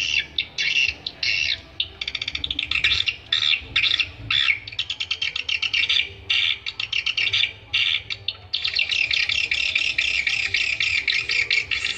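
Swiftlet lure recording: rapid, high twittering chirps of swiftlets, coming in short bursts with gaps, then running together into an unbroken chatter about two-thirds of the way through.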